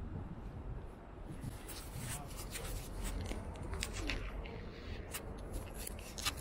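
Street ambience: a low steady rumble and faint voices of passersby. From about a second and a half in, a quick run of sharp clicks and rubbing sounds close by.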